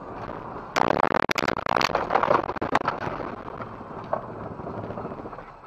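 Car collision heard from inside a dashcam car: over steady road noise, a sudden loud burst of crunching, crackling noise starts about a second in, lasts about two seconds and dies away.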